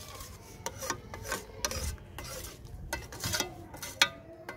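Perforated steel skimmer stirring hot milk in a steel pan, scraping the metal in a run of short rasping strokes, with one sharper metal knock about four seconds in.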